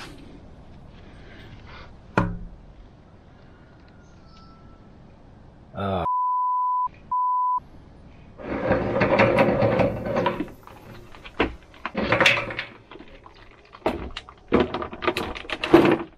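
A steady high censor bleep sounds twice in quick succession over a brief exclamation. Before and after it come scraping, knocking and clunks of the rusty steel cover plate being worked off a road grader's chain case.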